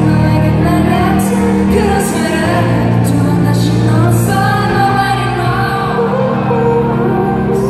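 A male singer singing a slow song live into a microphone over backing music with long held low notes.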